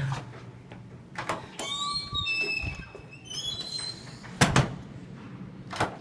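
A cluster of short, high squeaks in the middle, with a few sharp knocks before and after.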